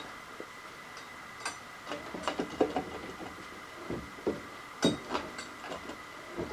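Irregular light clicks and knocks of metal parts and tools being handled while a workpiece is set up, the sharpest about two and a half and five seconds in, over a faint steady high-pitched tone.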